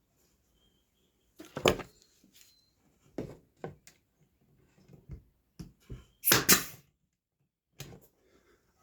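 Irregular knocks and clunks of wooden pieces being handled and set down on a workbench. The loudest comes about two seconds in, and a hard double knock comes a little past six seconds.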